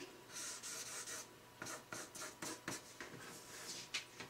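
Pen scratching over paper: one longer stroke, then a run of short quick strokes.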